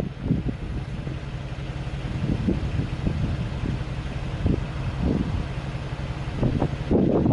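A steady rushing noise with gusts of wind buffeting the microphone in uneven low thumps.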